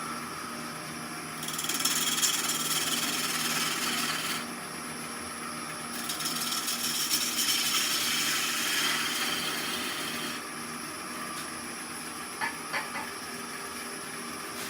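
A gouge cutting into green wood spinning on a Oneway 2436 lathe, squaring off the end of the blank: two passes of a few seconds each, a hissing shaving sound over the lathe's steady motor hum. A few light taps near the end.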